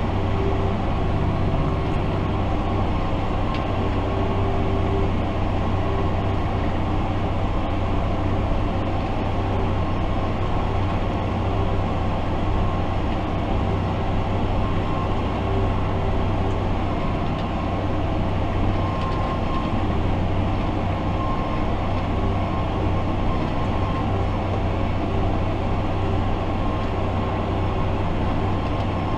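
Fendt 828 Vario tractor's diesel engine and drivetrain heard from inside the cab, running at a steady working speed under load with an even, low drone.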